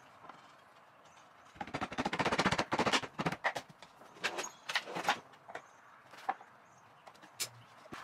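Finger-jointed wooden drawer side being pushed onto its mating fingers by hand in a dry fit: a quick run of rapid wooden knocks and rattles lasting about a second and a half, followed by scattered single wooden taps and clicks as the parts are handled.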